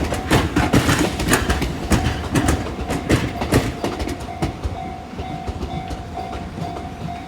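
Electric commuter train passing on the Tobu Skytree Line, its wheels clacking over rail joints. The clacks come fast and loud at first, then thin out and fade as the train moves away, with a faint repeating tone underneath.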